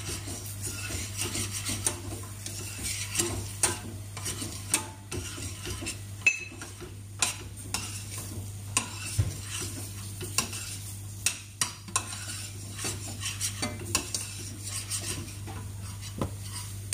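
A spoon stirring and scraping around a stainless steel saucepan, with frequent irregular clinks against the pot's side and bottom, as flour is stirred into a corn and milk mixture over the heat. A steady low hum runs underneath.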